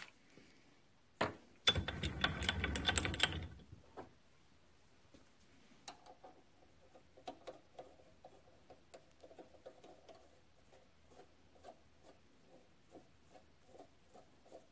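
A short rattling clatter for about two seconds early on, then faint, rapid small metallic ticks and scrapes as a steel nut is spun by hand onto a freshly cut 7/16-20 thread on a steel push rod held in the stopped lathe's chuck, test-fitting the thread.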